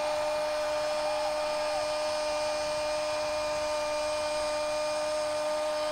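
Football commentator's drawn-out goal cry, 'Gooool', held on one unbroken high note.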